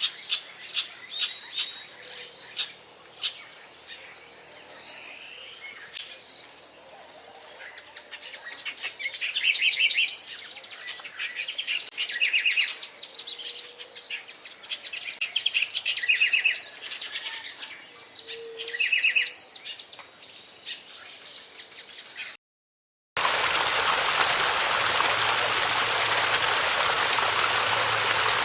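Several birds singing and calling, with quick chirps and fast rapid-note trills, over a steady high drone. About 22 seconds in it cuts out for a moment and gives way to the steady rush of a stream.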